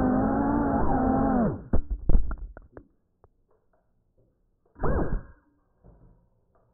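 GEPRC Cinelog35 FPV quadcopter's motors whining steadily with a wavering pitch, cutting off about a second and a half in as the drone crashes. A quick run of knocks follows as it hits and tumbles. About five seconds in, the motors spin up once more in a short whine that slides in pitch.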